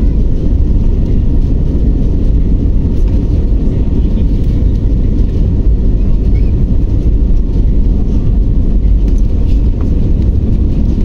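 Loud, steady low rumble inside the cabin of an Airbus A320-family jet airliner rolling along the runway: the jet engines running and the wheels rumbling over the runway surface.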